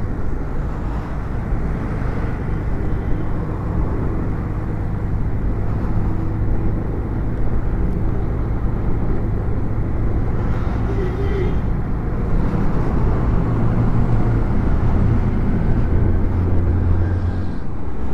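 Motorcycle running steadily at road speed, a low engine hum mixed with wind and road noise; the hum grows a little stronger in the second half.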